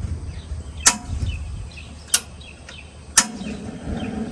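Gas cooker's igniter clicking three times, about a second apart, as the gas is turned on to light the burner. After the third click a low steady rush sets in.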